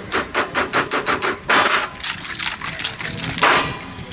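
Ice and drink rattling inside a steel tumbler clamped over a glass as a kulukki sarbath is shaken hard: a quick run of sharp clinks, about six a second, then two longer rattling swishes, about a second and a half in and again near the end.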